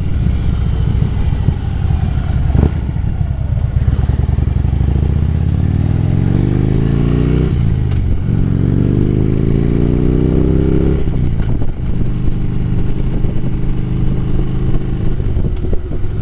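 Harley-Davidson V-twin motorcycle engine running under way: it picks up speed about five seconds in, drops briefly at a gear change, pulls up again, then settles into a steady cruise.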